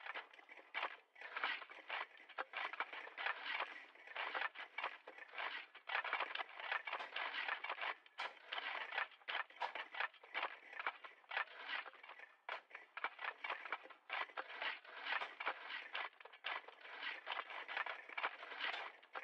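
Shovels digging: blades scraping and crunching into soil or gravel in quick, irregular, overlapping strokes.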